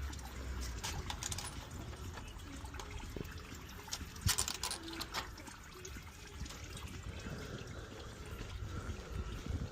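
Antifreeze coolant trickling steadily out of a BMC Mini tractor's radiator as it is drained, with a few short knocks about four to five seconds in.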